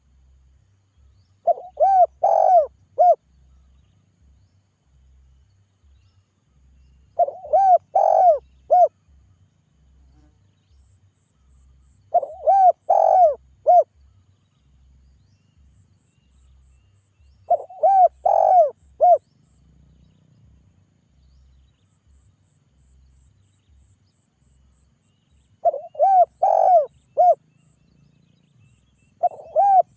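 Spotted dove (tekukur) cooing its calling song: six phrases a few seconds apart, each a quick run of four or five coos, the last starting near the end.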